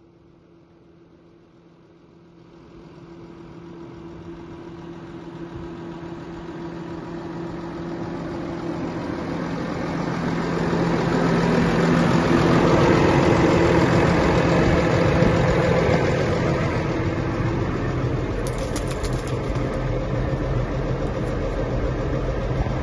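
New Holland T7.220 tractor's diesel engine running, heard from the cab. It starts faint, grows steadily louder until about twelve seconds in, then holds.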